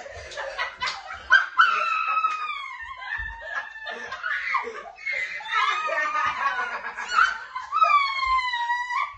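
A group of people laughing hard together, with shrieking, high-pitched laughs. One long squealing laugh near the end falls slowly in pitch.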